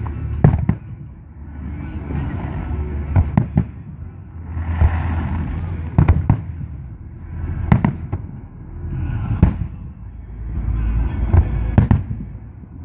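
Aerial firework shells bursting overhead: sharp bangs every second or two, about eight in all, some in quick pairs, over a low rumbling echo.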